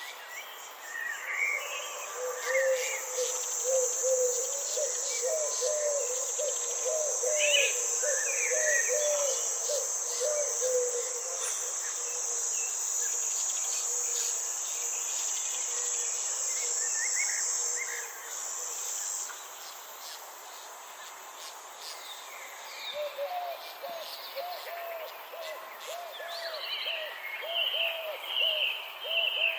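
Garden ambience: a steady, high insect buzz that fades out about two-thirds of the way through, with birds chirping. Two long runs of quick, short, low calls repeat, one near the start and one near the end.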